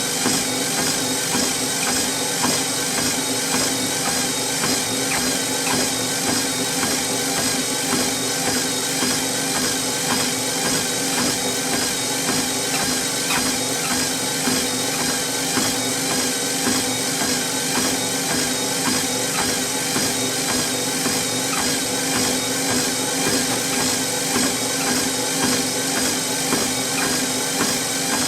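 Treadmill running steadily: an even motor hum and belt whir, with the regular soft thuds of walking footsteps on the belt.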